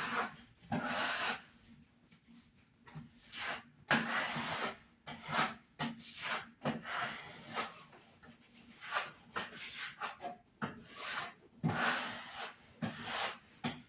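Repeated rubbing and scraping strokes worked by hand against a surface, irregular, about one or two a second.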